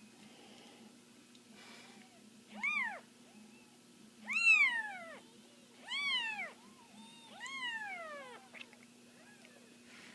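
Kitten meowing four times at roughly one-and-a-half-second intervals. Each is a high call that rises and then falls in pitch, with fainter little meows between them.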